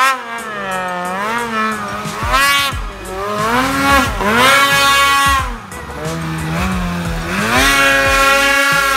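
Snowmobile engine revving up and down again and again, its pitch rising and falling in long sweeps as the sled is worked through deep powder.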